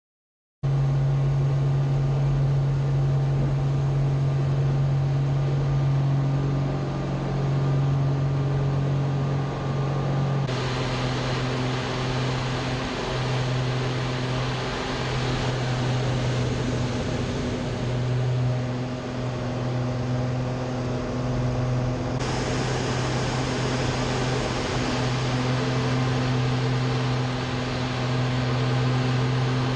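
Light aerobatic aircraft's engine droning steadily, heard from inside the cockpit, with a strong low hum. The sound shifts abruptly about ten seconds in and again about twenty-two seconds in.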